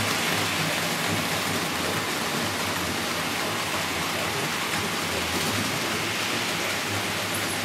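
Model freight train rolling along the layout's track behind an old-style model electric locomotive: a steady rushing rattle of many small wheels on the rails, with a low hum underneath.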